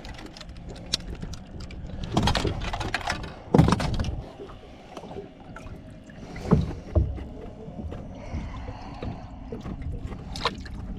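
Scattered knocks and thumps on a bass fishing boat over a low steady rumble, the loudest about three and a half seconds in and again about six and a half seconds in.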